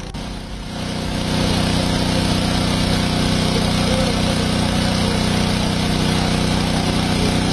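Engine of a pump set running steadily at a constant speed, pumping out floodwater; it grows louder over the first second or so, then holds even.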